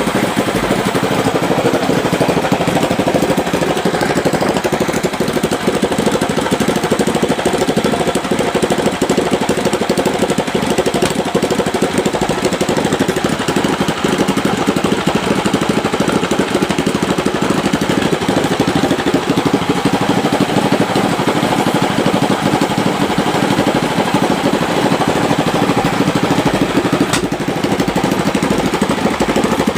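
Katinting longtail boat engine, a small single-cylinder petrol engine, running loudly and steadily during an engine test.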